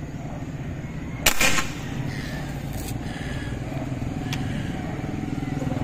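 A single gunshot fired at a fish in the water, one sharp crack about a second in, over a steady motor hum.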